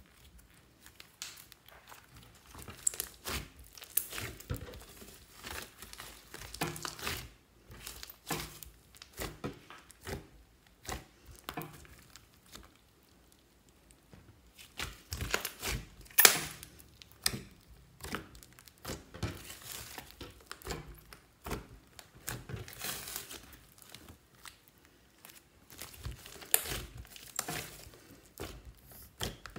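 Purple slime made from clear slime mixed with makeup and clay, being stretched, pulled and kneaded by hand: irregular sticky crackles, pops and squishes. One sharper pop comes about halfway through.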